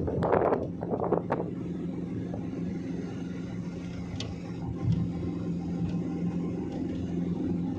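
Steady drone of a car's engine and road noise while driving. A few loud gusts of noise, like wind buffeting the microphone, come in the first second and a half, then the drone settles.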